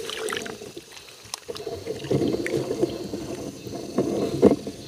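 Hands sloshing and groping in shallow muddy paddy water, with small splashes; it grows louder about two seconds in and peaks with a sharper splash just after four seconds.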